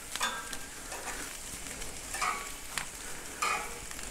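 Pork medallions sizzling on a hot grill grate as they are turned over one by one with metal tongs. A few brief louder flares of sizzle break through the steady hiss.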